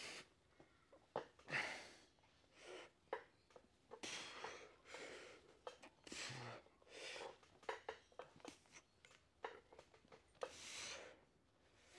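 Faint, forceful breathing from a man under exertion during incline dumbbell presses: short hissing breaths in and out, one every second or so, with a few light clicks between them.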